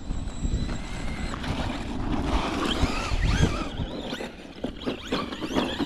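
Wind buffeting the microphone while an electric RC truck's motor whines up and down in short throttle bursts. Through the second half come a series of sharp knocks and clatters as the truck bounces over rough ground.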